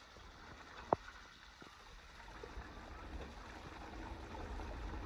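Faint running, trickling water at a water wheel that drives a water pump, growing louder toward the end, with one sharp click about a second in.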